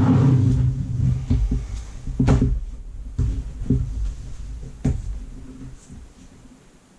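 Avid Carp Quick Up Session Organiser, a fabric-sided storage unit with a metal frame, being folded down by hand: rustling fabric and rumbling handling noise, with several sharp clicks and knocks from the frame, the sharpest about two seconds in.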